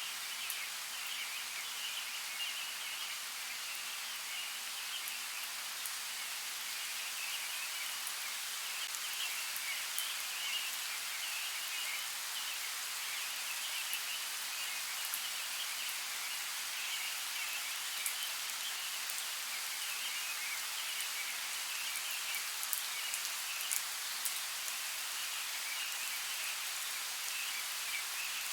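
Steady light rain falling, with scattered drops ticking more often in the second half, over a continuous high, flickering chatter in the background.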